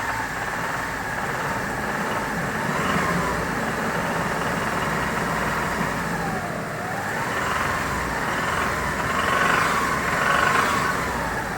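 Hyundai Terracan 3.5 V6 petrol engine running, its revs slowly rising and falling, with the knock it develops at 2000–3000 rpm. The knock stops when fuel to cylinder 4 is cut off, and is suspected to come from a stuck hydraulic lifter, a rod bearing, a wrist pin or a piston.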